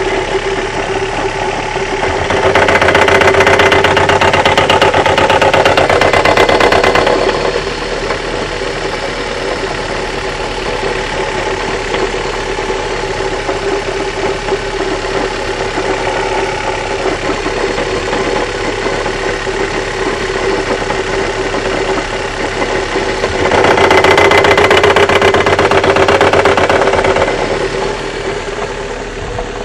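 Honda Accord Wagon CH9 idling steadily. Twice, for about four to five seconds each, a louder rapid rattling knock rises over the idle: the knock the owner places in the gearbox (transmission).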